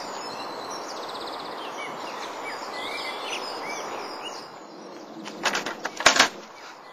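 Outdoor ambience with small birds chirping over a steady background hiss. Near the end comes a quick run of knocks or thumps, the loudest of them about six seconds in.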